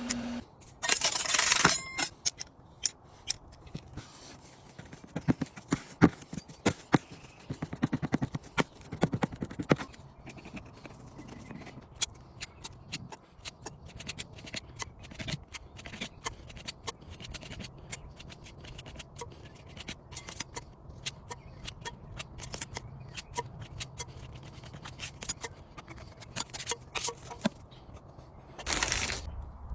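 Hand tools working a wood repair: repeated scrapes and many short, sharp clicks, with a louder rush of noise about a second in and another near the end.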